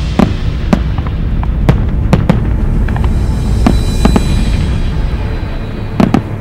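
Aerial firework shells bursting in an irregular string of sharp booms over a continuous low rumble, with two loud reports close together near the end.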